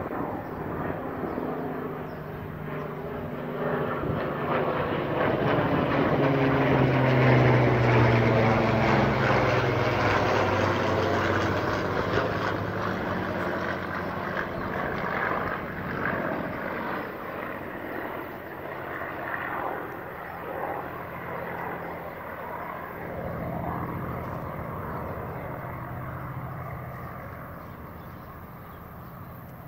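Piston engines of a pair of WW2 propeller aircraft flying over: the drone grows to its loudest about seven seconds in, falls in pitch as they pass, then slowly fades away.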